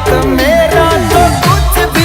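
Background music with a steady beat and repeated falling bass notes.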